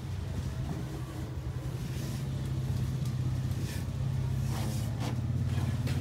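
An engine running steadily as a low hum that grows a little louder, with a few brief knocks in the second half.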